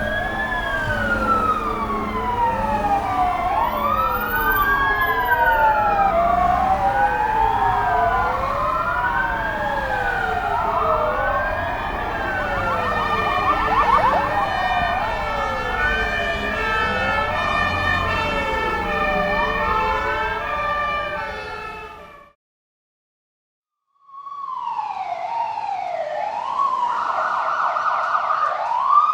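Several emergency-vehicle sirens wailing at once, their tones rising and falling in overlapping sweeps of about a second each. They cut off abruptly about 22 seconds in, and after a pause of about two seconds another siren starts with a different rising and falling pattern.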